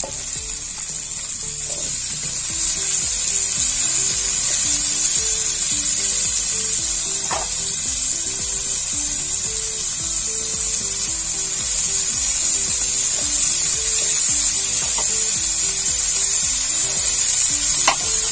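Diced potatoes frying in mustard oil in a metal kadai, sizzling steadily as shredded cabbage is dropped in and stirred. Soft background music with a slow melody plays underneath.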